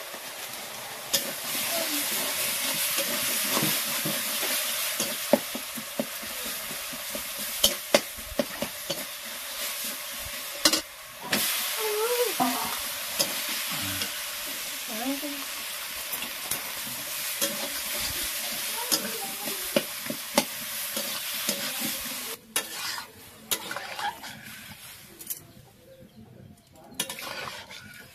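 Malabar spinach stems and potato sizzling in hot oil and masala in a metal kadai, stirred with a metal spatula that clicks and scrapes against the pan. The sizzling drops away sharply about three-quarters of the way through and stays quieter to the end.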